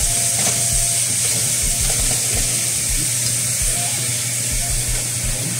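Raw ground bison sizzling steadily in a hot nonstick skillet as it starts to brown, while a spatula breaks it up and stirs it.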